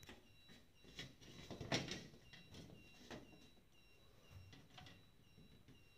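Faint handling knocks and scrapes of an air conditioner's metal mounting plate against a partition wall as it is held and shifted into position, with a few light knocks about a second in and again just before two seconds.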